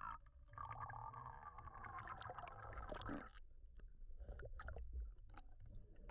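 Faint, muffled water sounds from a camera going underwater: a rush of bubbles and water for the first few seconds, then scattered clicks and pops, over a low rumble.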